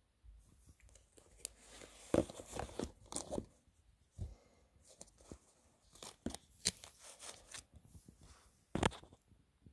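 Oracle cards and their guidebook being handled: irregular rustles, clicks and light taps of stiff card, loudest about two seconds in and again near the end.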